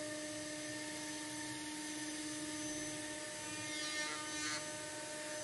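CNC router spindle turning a 3 mm single-flute solid carbide end mill at 18,000 rpm, cutting frames out of 6 mm polyethylene sheet in one full-depth pass: a steady whine over a hiss of cutting. There is a brief rising sound about four seconds in.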